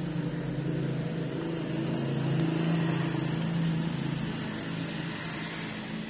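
Scottish Fold cat purring steadily.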